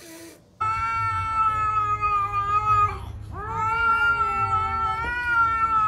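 A short hiss, then a cat yowling in two long, steady drawn-out cries, with a brief break about three seconds in: the low threatening yowl of a cat in a standoff with another cat.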